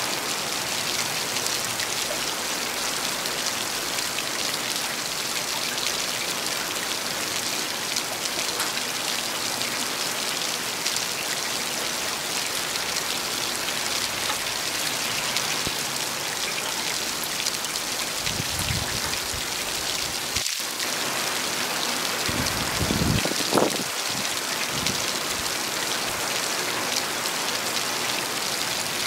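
Heavy rain falling steadily, a dense even hiss of drops. Two brief low rumbles come a little past the middle, the second the loudest moment.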